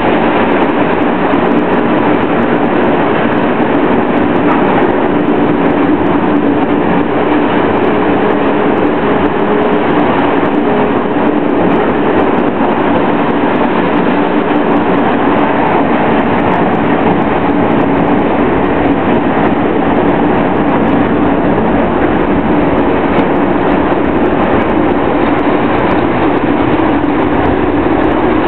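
Car shredder plant running, a loud, steady, unbroken machine noise with a low hum under it.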